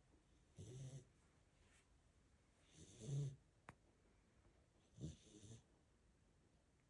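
Sleeping puppy snoring softly, three snores about two seconds apart.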